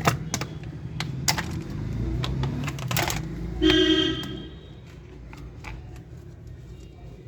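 Sharp clicks and knocks of small hard parts being handled, with a louder cluster about three seconds in, followed by a short buzzing, horn-like tone lasting under a second.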